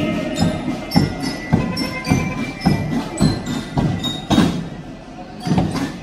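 Marching band of bell lyres and marching drums playing a march. The drums strike about twice a second, and ringing metal lyre notes sound above them.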